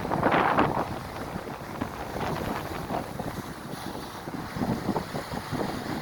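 Strong wind buffeting the microphone: an uneven rushing rumble that surges in gusts, the strongest right at the start.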